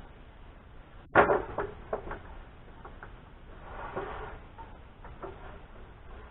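Knocks and clatter of carpentry work with lumber: one sharp, loud knock about a second in, then several lighter knocks and clicks and a brief rustle.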